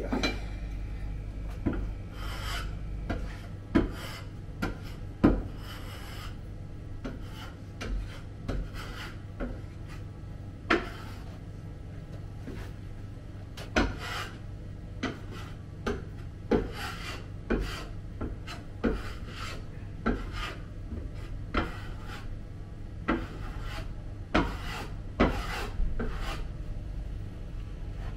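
A hand tool scraping and rubbing on a wooden counter top in short, irregular strokes every second or two, over a steady low hum.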